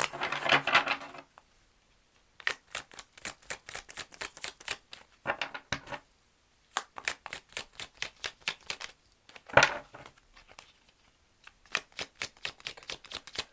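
Tarot cards shuffled by hand: quick runs of light card flicks and slaps in several bursts with short pauses, and one louder snap past the middle.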